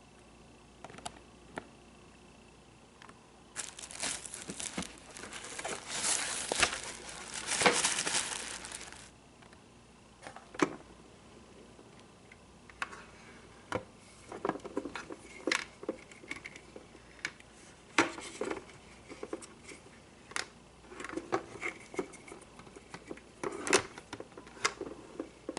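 Packaging being crinkled and torn open for about five seconds, then a run of scattered clicks and light knocks as the unpacked parts are handled.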